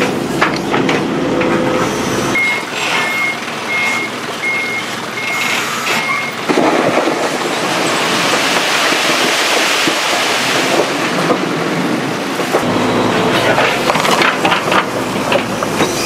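Heavy construction machinery working: an engine running with clanks and knocks, then a warning alarm beeping about once every 0.7 s for about four seconds, then a steady rushing hiss for about six seconds before the engine and clanking return.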